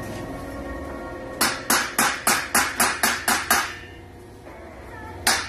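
Hammer striking a steel tubular fence frame: a quick run of about nine metal blows, roughly four a second, then a single blow near the end.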